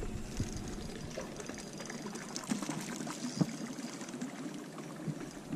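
Water lapping and trickling against a boat hull, with a few light clicks and knocks scattered through.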